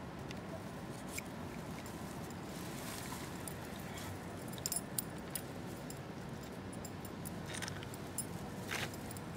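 Steady outdoor background noise, with a few light clicks and rattles about halfway through and a short rustle near the end, from a spinning rod and reel being handled.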